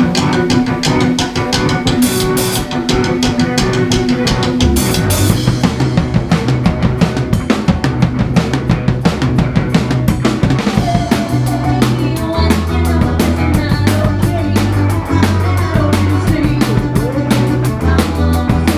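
Live rock band playing. A busy drum kit beat runs throughout, and low bass notes come in about five seconds in.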